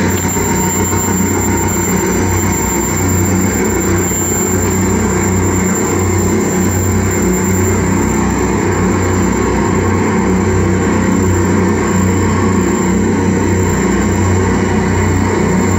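Live experimental noise music from a table of electronics played through a PA: a loud, unbroken drone of dense noise with a heavy low rumble, and a thin high whine held steady above it.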